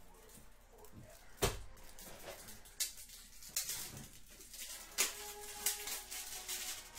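Handling noise on a tabletop: a sharp knock about one and a half seconds in, then several lighter clicks and rustles.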